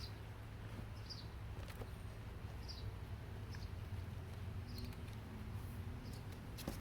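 A small bird repeating a short high chirp about once a second over a steady low background hum, with a few faint clicks.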